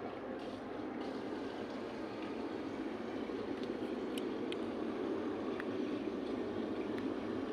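A steady, even droning noise that swells slightly, with a few faint ticks.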